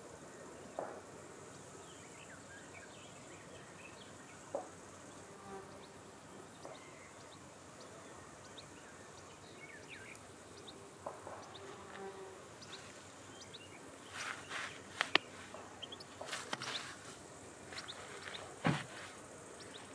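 Faint outdoor ambience: a steady high hiss, with scattered short chirps and clicks that grow busier in the last six seconds.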